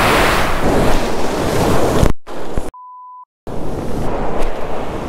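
Ocean surf breaking, with wind buffeting the microphone. About two seconds in the sound cuts out, and a short steady censor beep sounds alone for about half a second before the surf comes back.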